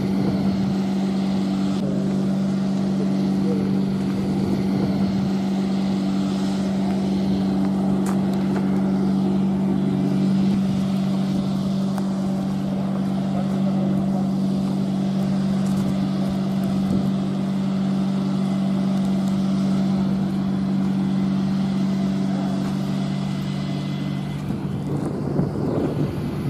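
Engine idling: a steady low hum that stays at one pitch.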